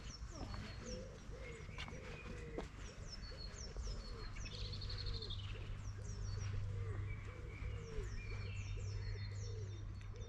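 Birdsong from several birds: short high falling chirps and a brief trill near the middle, over a steady run of short low repeated calls.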